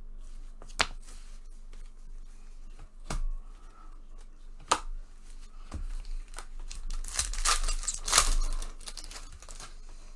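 A baseball card pack's foil wrapper being torn open and crinkled: a few sharp clicks, then a dense burst of tearing and crinkling about seven seconds in that lasts a couple of seconds.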